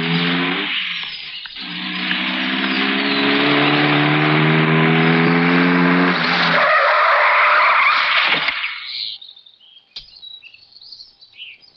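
A car engine revving and rising slightly in pitch as the car speeds in, then its tyres skidding to a halt on a dirt road. A sharp click, a car door opening, comes about ten seconds in.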